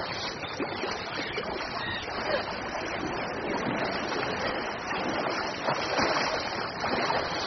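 Two swimmers churning through a swimming pool, a steady splashing of water.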